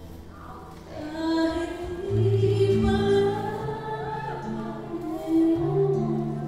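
Live solo vocal with acoustic guitar: a sung melody with long held notes comes in about a second in, over sustained low guitar notes.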